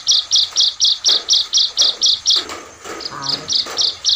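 Small caged songbird kept as a ciblek, in full song: a fast run of sharp, high repeated notes, about five a second, that breaks off about two and a half seconds in and picks up again with a few notes near the end.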